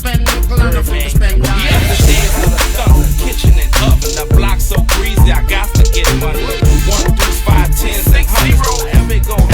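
Hip hop track playing in a DJ mix, with heavy bass and a steady drum beat.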